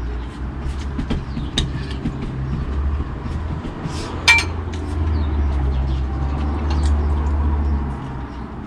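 Low rumble of passing traffic, swelling from about five seconds in and fading near the end, under light clicks of tableware and one sharp clink about four seconds in.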